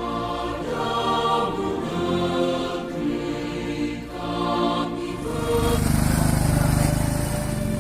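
Background music with a melody for about the first five seconds, then a motor vehicle's engine comes in and runs steadily, louder than the music.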